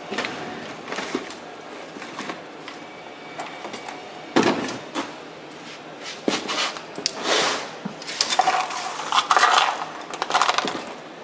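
Metal parts clinking, knocking and rattling together in irregular clusters as a mesh welding machine's roller assembly is handled and fitted by hand. The loudest knock comes about four seconds in, and a longer run of rattling comes near the end.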